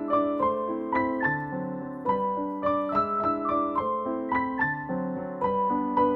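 Background music: a gentle piano piece playing a flowing melody of evenly paced notes over held lower notes.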